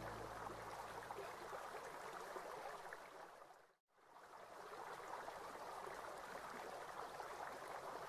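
Running water, a steady trickling rush. It fades out to a moment of silence a little before halfway, then fades back in.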